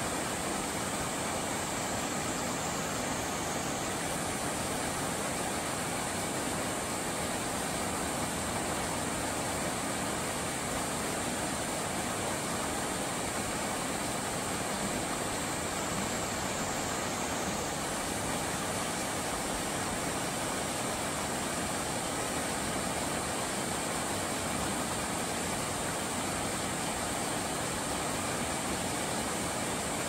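Steady rush of flowing stream water, an even, unbroken noise, with a thin high-pitched drone on top that wavers briefly twice.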